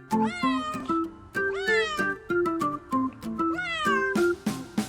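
Domestic cat meowing three times, each meow rising then falling in pitch, over light children's background music.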